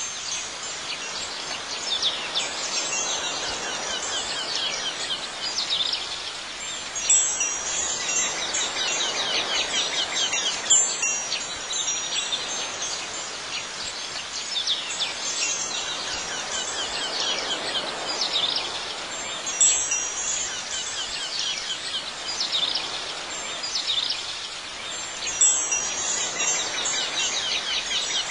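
Wind chimes tinkling without a break, with a few brief louder clusters of ringing.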